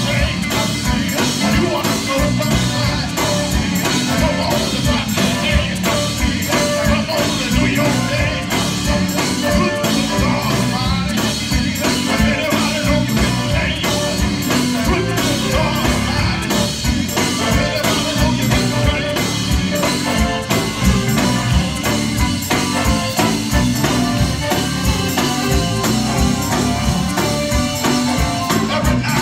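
Live gospel band playing with a steady fast beat: drum kit, electric bass and guitar and keyboard, with a lead singer singing over it.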